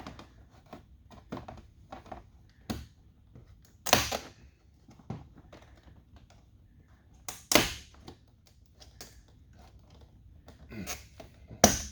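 Plastic clips and trim of a truck door panel clicking and knocking as they are handled and pried loose, with three louder sharp thunks, about four seconds in, past midway and near the end.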